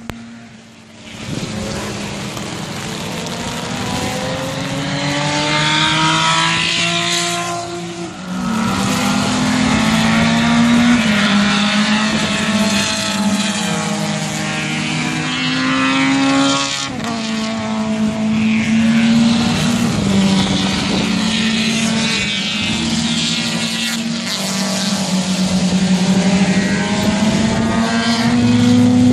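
Race cars at full throttle passing one after another on a wet track, engines revving. Each engine note climbs, then drops sharply at a gear change, over the hiss of tyres throwing up spray.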